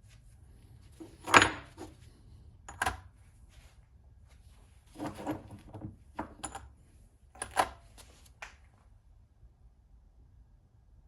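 Hard objects knocked and set down by hand: about six short clattering knocks with quiet between, the loudest about a second and a half in.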